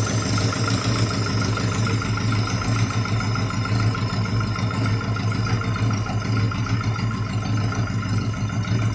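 Daihatsu Taruna 16-valve four-cylinder engine idling roughly, with a regular pulsing beat, on its first run after a top overhaul. The limping idle comes from one cylinder-4 valve set too tight, which loses compression on that cylinder.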